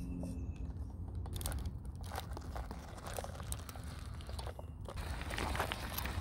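FTX Ravine RC rock crawler clambering over rock and loose stones: tyres and chassis crunching and scraping, with scattered sharp clicks and knocks that grow busier over the last few seconds, over a steady low rumble.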